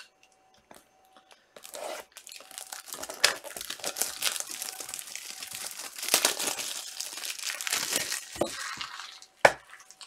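Crinkly trading-card wrapper being torn open and crumpled, a dense crackling rustle lasting several seconds. Two sharp knocks come near the end.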